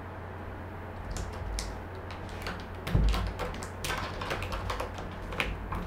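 A cat pawing and scratching at a closed sliding door from the other side, trying to open it: irregular clicks and scratches, with one dull knock about three seconds in.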